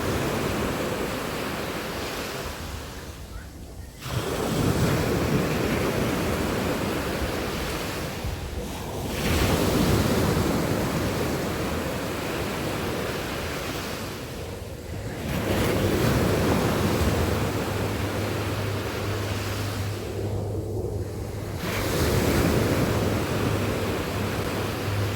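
Sea waves breaking on a beach, the surf swelling and falling back about every six seconds. A low steady hum joins in about halfway through.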